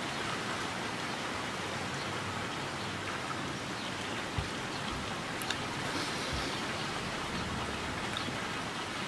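A steady rushing noise like wind or running water, with two small knocks around the middle.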